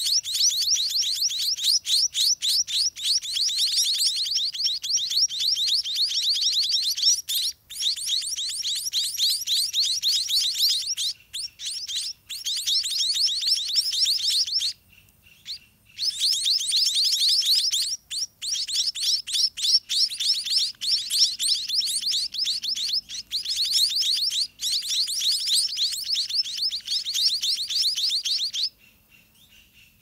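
White-rumped munia nestlings begging as a parent feeds them: a dense stream of rapid, high chirps, many a second, broken by a few brief pauses and cutting off shortly before the end.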